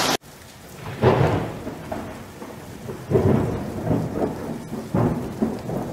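Rain falling with low, rolling rumbles of thunder that swell up about a second in, again at three seconds and at five seconds.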